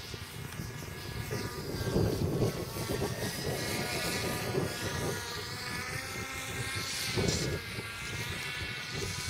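An RC paraglider's motor and propeller make a steady whine that wavers a little in pitch. Wind rumbles on the microphone, with gusts about two seconds in and again near seven seconds.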